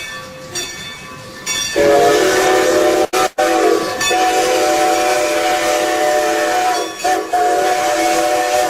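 Train's multi-note air horn sounding a held chord, starting about two seconds in and blown in long blasts with two short breaks, over a noisy hiss.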